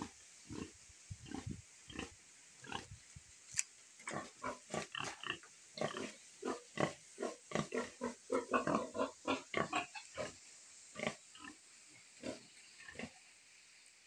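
Pigs grunting in a string of short grunts, coming thick and fast through the middle and sparser near the start and end.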